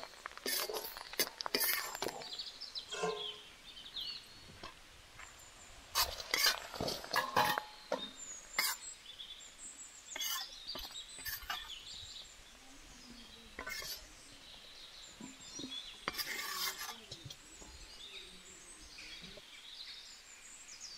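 Intermittent clinks, knocks and scrapes of metal utensils against cookware, coming in short clusters with quieter gaps between, while birds chirp faintly in the background.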